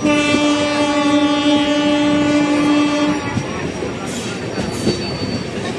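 Train horn sounding one steady blast of about three seconds, then cutting off, over the running noise of the carriages on the rails, which carries on after it.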